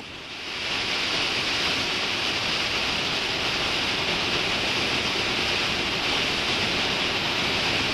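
Steady rush of air past a glider's cockpit canopy on the approach at about 55 knots: a hiss with no engine, building up in the first second and then holding level.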